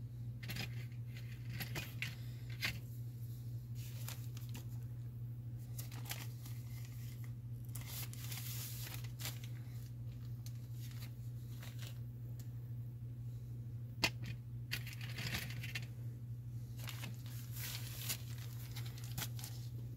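Steady low hum, with scattered light clicks and brief rustles of fly-tying materials being handled.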